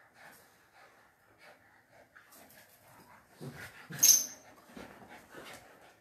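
Two dogs play-fighting: scuffling and small, soft dog noises, with one short, sharp, high-pitched squeak about four seconds in.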